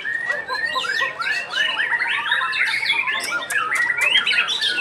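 White-rumped shama singing a fast, continuous stream of varied chirps, slurred whistles and quick rising and falling notes.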